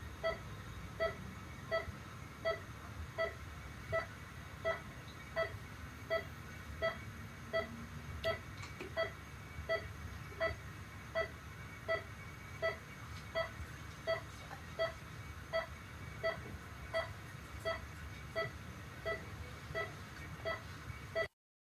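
Heart-rate monitor beeping: short electronic beeps at a steady pulse of roughly 80 a minute, over a low steady hum. It cuts off abruptly near the end.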